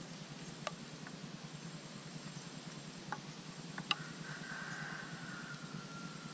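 A few small clicks and ticks as hands work with fishing hook and line: one under a second in, another about three seconds in, and a sharper double click just before four seconds. A steady low hum runs underneath, and a faint thin tone comes in about four seconds in.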